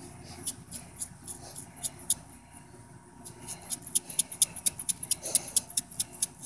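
A handheld shaker shaken over a slug, rattling in sharp, high clicks. The clicks are spaced apart at first, then come in a fast run of about five a second from about three and a half seconds in.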